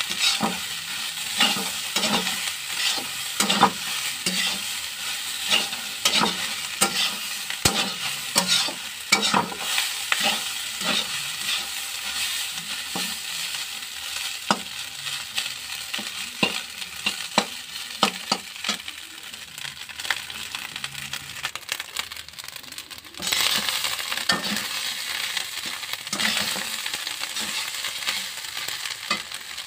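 Rice stir-frying in oil in a metal wok: a spatula scrapes and turns it about once or twice a second over a steady sizzle. The strokes thin out later on, and the sizzle grows louder about two-thirds of the way through.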